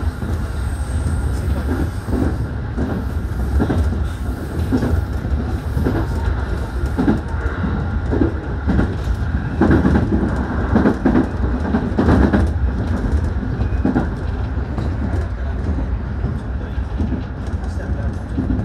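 JR 211 series electric train running, heard from inside the front car: a steady low rumble of wheels on rail with a run of knocks and clatter as the wheels cross rail joints and points, loudest about ten seconds in.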